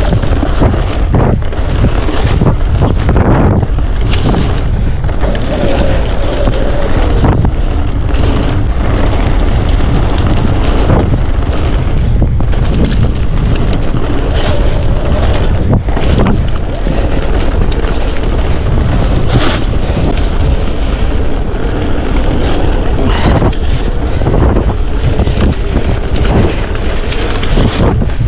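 Wind buffeting the microphone of a mountain bike being ridden along a wet trail. Under it runs the bike's rattling and a string of knocks as it goes over bumps.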